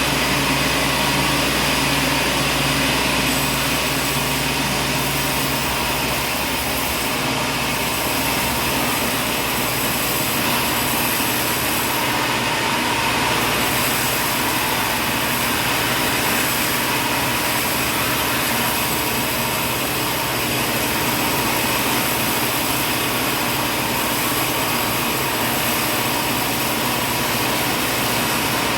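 Sawmill machinery running steadily, a dense mechanical whir and rush with a low hum that drops away about six seconds in.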